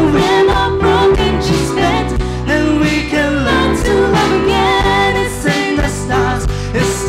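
A live rock band playing a song. Regular drum hits and a steady bass run under a melody line that bends in pitch.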